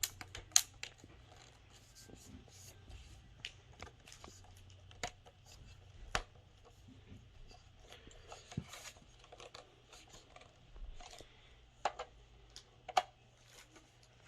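Hard plastic parts of a toy foam dart blaster being handled and slid together, with scattered sharp clicks and light scraping; the sharpest click comes about half a second in.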